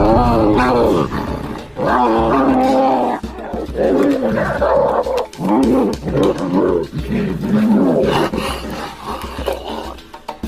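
Large wild animals giving loud roars and snarls in about five bouts, each call wavering up and down in pitch.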